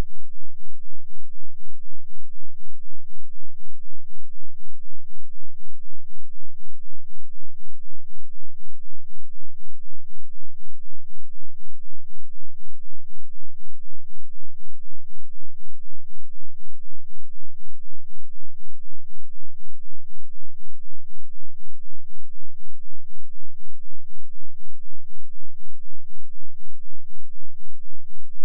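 2 Hz sine-wave test tone for subwoofers: a continuous, very low tone whose loudness pulses evenly about four times a second, with no other sound.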